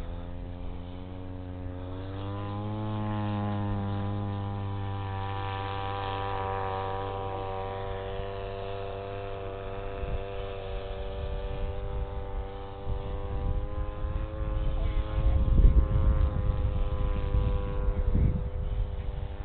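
Model Spitfire's motor and propeller running close by, rising in pitch about two seconds in as the throttle opens, then holding a steady pitch. Rough low rumbling joins in over the last several seconds and becomes the loudest sound.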